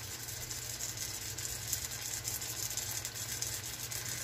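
New York strip loin steaks sizzling in an oiled nonstick frying pan on medium heat: a steady, dense crackle of spattering oil and juices. A low steady hum runs underneath.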